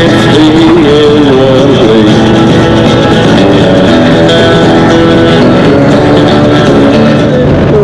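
Guitar-driven rock music played loud through a two-speaker Cicada component speaker set.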